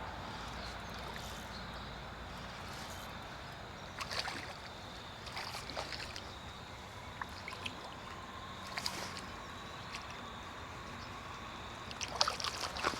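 Shallow creek water running steadily, broken by a few short splashes, with a cluster of them near the end, as a hooked smallmouth bass thrashes at the surface while it is played in on an ultralight rod.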